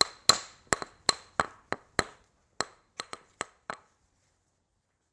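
Hammering: a quick, uneven run of sharp blows, about three a second, each with a short ring, stopping about four seconds in.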